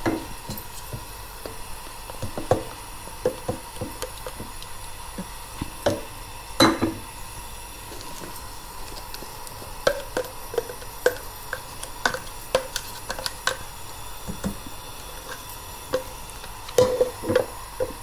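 Spice paste and galangal frying in oil in a wok-style pan: a light sizzle under irregular knocks and clatter of utensils against the pan and a blender jar. The loudest knock comes about a third of the way in, and a run of quick knocks from a wooden spatula stirring comes near the end.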